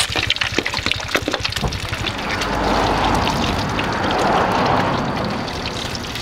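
An egg frying in hot oil in a wok, sizzling steadily with lots of little crackles and spits. There are a few sharp clicks in the first second and a half, fitting the metal spatula against the wok.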